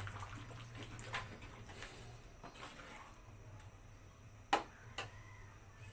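Long metal ladle stirring a cream sauce in a steel wok: faint scraping and a few light ticks, the sharpest about four and a half seconds in, over a low steady hum.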